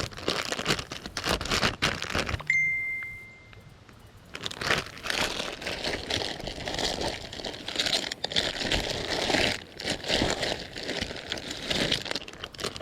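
Plastic bag of soft-plastic fishing baits crinkling and rustling as it is handled, in two stretches with a quiet pause about two and a half seconds in. A brief high tone sounds at the start of that pause.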